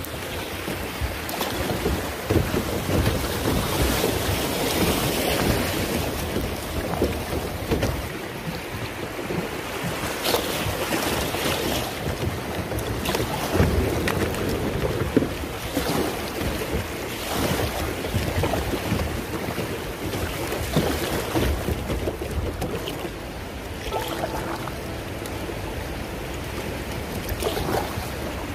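River water rushing and splashing over shallow riffles against a kayak's hull, with wind buffeting the microphone.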